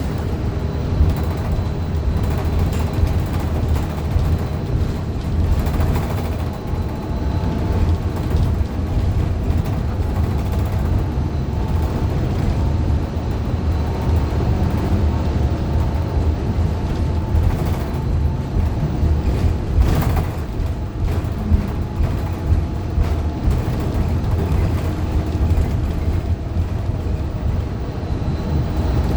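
Interior ride noise of a 2015 Gillig Low Floor 40-foot CNG transit bus under way: a steady low rumble from its Cummins Westport ISL G engine and Allison B400R transmission, whose transmission the uploader calls messed up, with faint steady whining tones over it. A single sharp knock about twenty seconds in.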